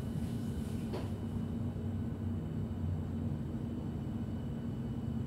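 Berlin S-Bahn class 483 electric train heard from inside a carriage while running, a steady low rumble with a constant hum. A brief sharp click about a second in.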